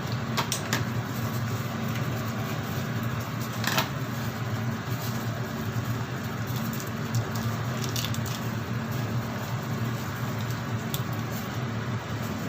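Pot of noodles boiling on the stove: a steady hiss and bubbling over a low hum, with scattered small clicks, the sharpest about four seconds in.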